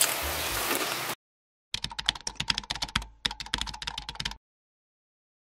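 Background music cuts off about a second in. A keyboard-typing sound effect follows: a rapid run of clicks lasting about two and a half seconds, with a short break in the middle.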